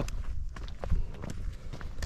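Footsteps of hikers walking on a stony path, with sharp clicks of trekking-pole tips striking the ground at irregular intervals, over a low rumble.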